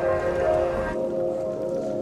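Background music with sustained, layered tones; the higher notes drop away about a second in, leaving the lower ones.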